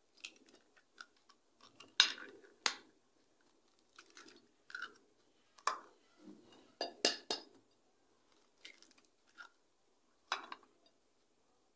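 Eggs cracked one after another into a glass mixing bowl: a series of sharp knocks of shell against the bowl, with crackling as the shells are pulled apart and set down.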